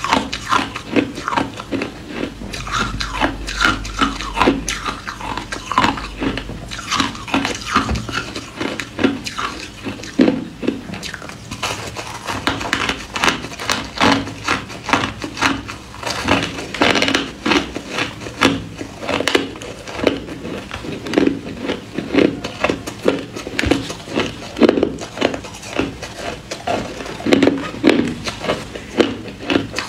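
Ice being bitten and chewed close to the microphone: a dense, continuous run of sharp crunches and cracks.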